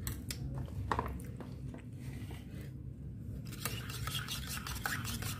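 Metal spoon stirring sugar into a syrup-and-milk mix in a metal mug, scraping and clinking against the mug's sides and bottom. It eases off briefly in the middle and picks up again toward the end.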